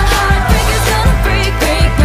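Pop music with a steady beat and a singing voice.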